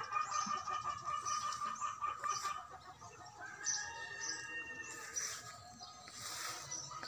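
Free-range chickens clucking as they forage, with a few short pitched calls a little past the middle. A steady high-pitched pulsing tone runs through the first half.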